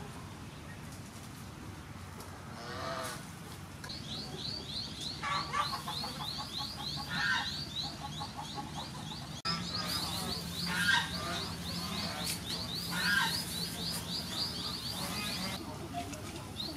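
Birds calling: a long, fast run of short, high repeated chirps begins about four seconds in, with a few lower calls from other birds now and then.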